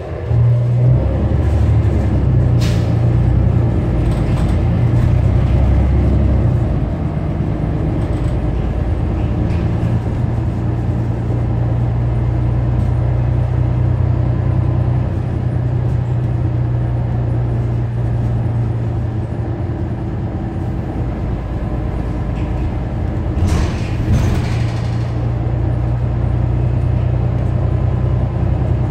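New Flyer XD40 Xcelsior city bus engine running, its pitch shifting over the first several seconds and then holding steady. About three-quarters of the way through there is a short hiss of air, lasting about a second.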